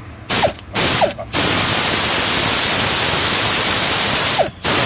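Pneumatic wrench tightening the nut on a rear shock absorber. There are two short trigger pulls, then a steady hissing run of about three seconds, then more short pulls near the end.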